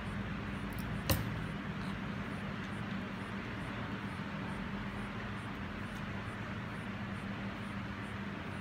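Steady background hum and hiss, with one sharp tap about a second in, as craft foam and scissors are handled on a table.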